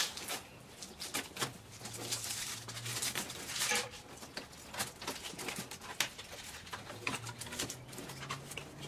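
A cardboard box being handled and opened: flaps lifted and folded back, with scattered rustles, scrapes and light taps throughout.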